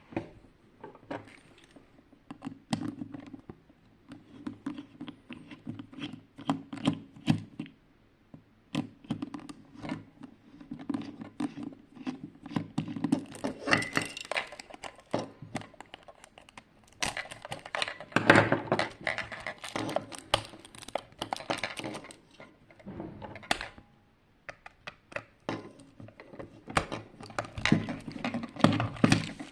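A plastic projection alarm clock being handled and taken apart by hand: many irregular clicks and knocks with bursts of scraping, broken by short pauses.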